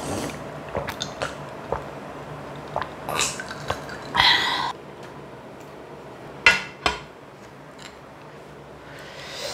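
Close-miked eating of clam kalguksu: wet chewing and squishing, a half-second slurp of noodles about four seconds in, and two sharp clinks on the dish around two-thirds of the way through.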